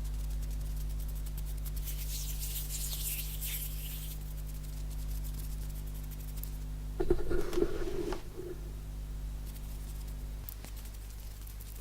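Hands rubbing and tapping close to the microphone: dry, hissy rustling a couple of seconds in, light fast taps scattered throughout, and about seven seconds in a louder, fuller rub lasting a second or so. A steady low hum lies underneath.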